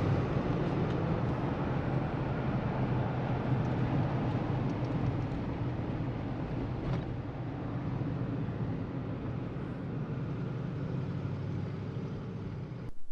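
Steady low rumble of road and engine noise from a moving car, heard from inside the cabin. It cuts off suddenly near the end.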